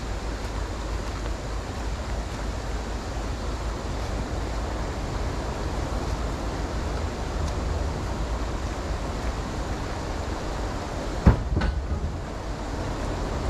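Steady rushing noise of a creek running over shallow rapids, with a low rumble beneath it. A single sharp knock, the loudest sound, comes just after eleven seconds, followed by a fainter one.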